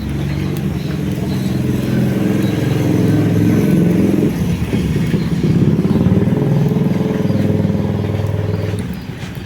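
A motor vehicle's engine running close by with a rapid, even firing pulse, dipping briefly about halfway through and dropping away near the end.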